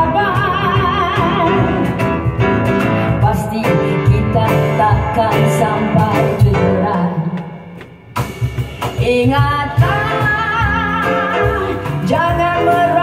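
A woman singing with strong vibrato, accompanied by piano and hand percussion. About eight seconds in the music drops away briefly, then her voice comes back in on a rising phrase.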